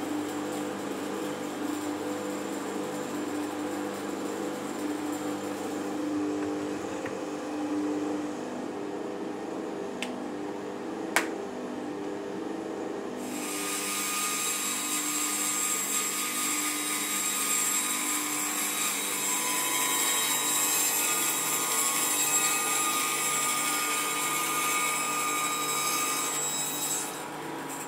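Bandsaw running and cutting through a wooden cricket bat handle: a steady motor hum with the hiss of the blade in the wood. A single sharp click about eleven seconds in, and the cutting hiss grows louder from about thirteen seconds in.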